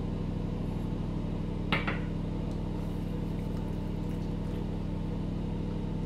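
Steady low hum of a running motor in a small room, unchanging throughout, with one short sharp click a little under two seconds in.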